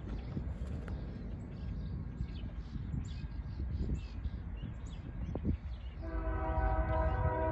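A low rumble, then about six seconds in a Union Pacific diesel locomotive's air horn starts a steady multi-note chord that keeps sounding.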